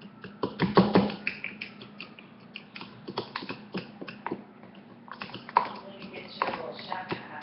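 A fork stirring pancake batter in a bowl, giving irregular quick clicks and taps of metal against the dish.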